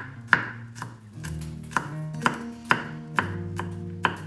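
A kitchen knife chopping garlic on a wooden cutting board: sharp knocks of the blade on the board, about two a second at an uneven pace, over background music.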